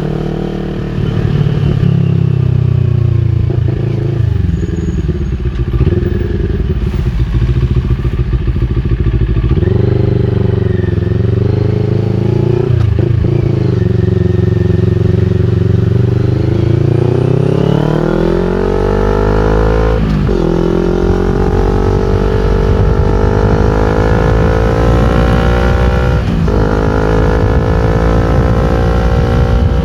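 CFMOTO NK400 motorcycle's parallel-twin engine breathing through an Akrapovic full exhaust system, riding under load. In the second half the pitch climbs repeatedly, with short dips at gear changes about two-thirds of the way in and again near the end.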